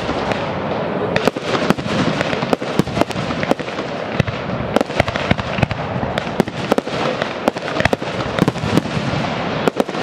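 Aerial firework shells bursting in quick succession: many sharp bangs, several a second, over a continuous dense noise.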